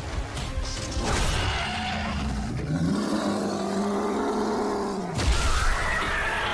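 Animated creature fight sound: a crash about a second in, then the mutated caveman's long, low, held roar for about two and a half seconds, cut off by a sudden crash and followed by a higher, rising-and-falling howl from the giant ape, over a music score.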